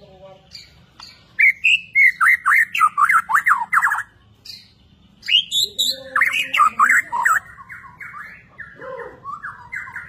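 White-rumped shama (Bornean murai batu) singing: two loud runs of rapid, sweeping whistled notes, one from about a second in to four seconds, the other from about five to seven and a half seconds, followed by softer, shorter notes.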